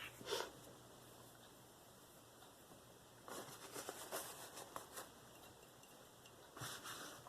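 A V-Toku2 steel knife edge drawn lightly across a Spyderco ultra fine ceramic stone: a few faint scraping strokes, a cluster of them midway and another near the end.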